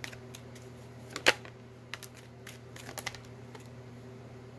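Tarot cards being handled as a card is drawn from the deck and laid on the table: a few scattered sharp card clicks and snaps, the loudest a little over a second in and a small cluster about three seconds in, over a steady low hum.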